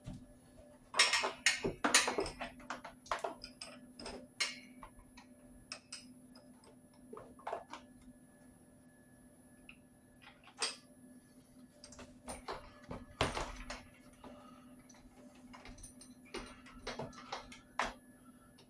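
Irregular clicks, clinks and knocks of metal cart parts, bolts and nuts being handled and fitted by hand, clustered in the first few seconds and again around the middle, over a faint steady hum.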